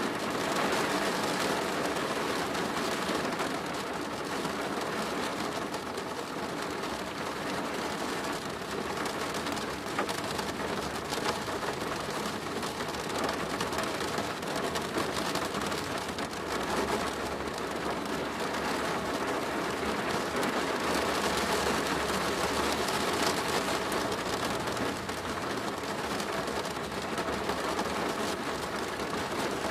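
Steady rain drumming on a plastic roof: a dense, even patter of drops.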